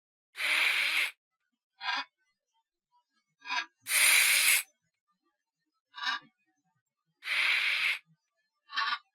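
Tarantula sound effect: three long hisses about three and a half seconds apart, with four short, fainter hisses between them.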